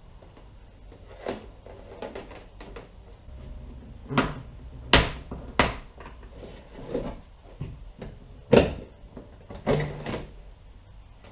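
Hands working on a plastic kayak: an uneven series of knocks and clicks as parts are handled against the hull, the sharpest pair about five seconds in and another about halfway through the second half.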